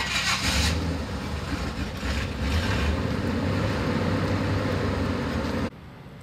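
A motor vehicle driving on a snow-covered road: a steady low engine and road rumble, with a brief hiss at the start. It cuts off suddenly near the end.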